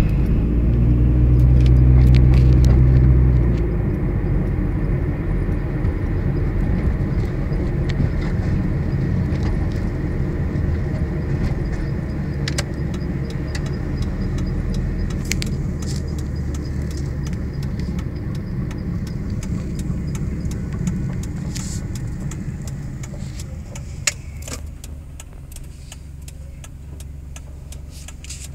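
Cabin sound of a 2003 Mitsubishi Lancer ES on the move, its 2.0-litre SOHC engine carrying a cylinder-2 misfire: steady engine and road noise, loudest for the first three seconds or so, then easing off and fading slowly as the car slows toward the end. Small rattles and clicks come and go throughout.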